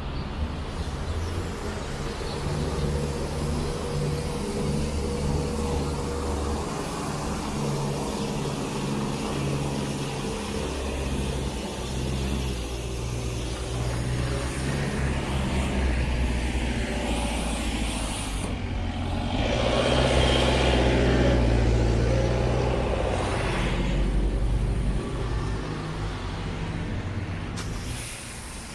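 Diesel engine of a small wheeled street-cleaning loader running steadily, its spinning front brush sweeping snow with a rushing noise. The sound is loudest about two-thirds of the way through, then fades near the end.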